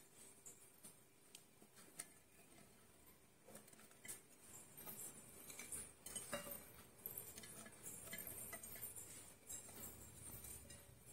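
Faint scattered taps and rustles of sliced carrot sticks being dropped by hand into a large glass jar.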